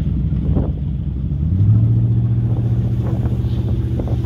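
Speedboat engine running and throttling up about a second and a half in, getting louder as the boat gets under way.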